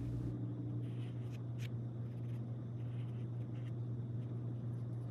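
Graphite pencil sketching on sketchbook paper: faint, light scratching strokes, over a steady low hum.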